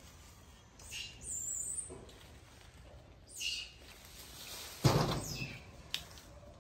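A young macaque lands with one sudden thump on a wooden board roof about five seconds in. A few faint high chirps come before it, and a small click follows.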